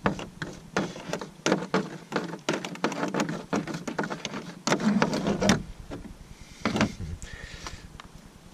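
Quick irregular knocks, taps and scrapes of hands and a container working against a Kevlar canoe hull while melted wax is poured into a hole. There are a few heavier thuds about five and seven seconds in, and it quietens near the end.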